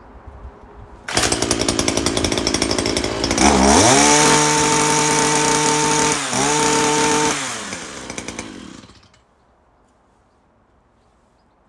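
Two-stroke petrol hedge trimmer engine starts up about a second in and idles. It is then revved up to full throttle in a rising whine, drops briefly and is revved again. Near the end it winds down and stops.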